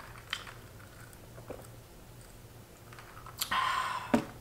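Faint chewing and mouth sounds with a few small clicks. Near the end comes a brief rushing noise, then a sharp knock as a plastic drinking cup is set down on the table.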